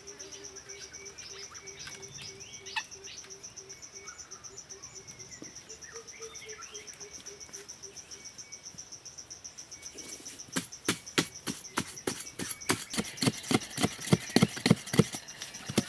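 A digging tool striking hard, dry soil over and over, about two to three blows a second from about ten seconds in, loosening earth for a post hole. Underneath, insects chirr steadily at a high pitch and birds call.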